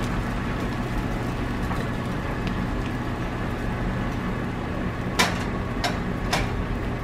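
Beaten eggs sizzling steadily in a hot square nonstick pan, over a steady low hum. A few sharp clicks come near the end.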